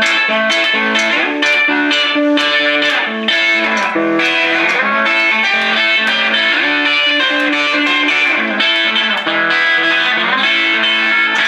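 Hollow-body electric guitar played through an amplifier, picking a rockabilly run of single notes and chords.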